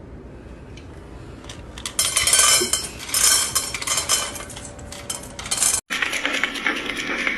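Clattering and clinking like dishes or cutlery, starting about two seconds in. A brief break just before the end gives way to a steadier noisy sound.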